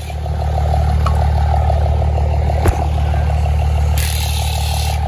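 Diesel pickup truck engine idling close by, steady, with a rapid even clatter over its low note. A single sharp click about two and a half seconds in, and a brief hiss near the end.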